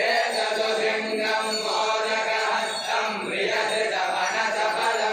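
A group of voices chanting a devotional song to Ganapati together in a steady, continuous chant.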